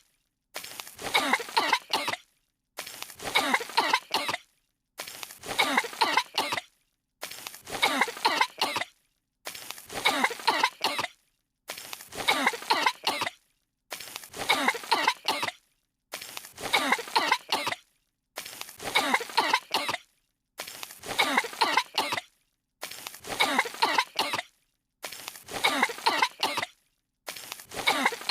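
Two cartoon characters coughing in fits: one short clip of coughing, under two seconds long, looped over and over with a brief silence between repeats, about every two seconds.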